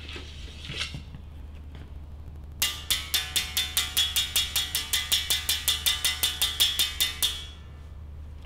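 Uhadi musical bow's single wire string, not yet fitted with its calabash resonator, struck rapidly with a thin stick, about five even strokes a second, each ringing on the same pitch. The strokes start a couple of seconds in and stop near the end; the newly strung bow is being tested.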